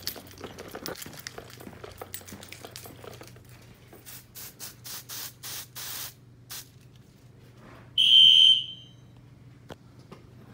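Light handling clicks and rustling, then about seven short hissing sprays from an aerosol can, typical of canned test smoke being sprayed into a smoke detector. About a second and a half later comes one loud, high-pitched electronic beep lasting under a second.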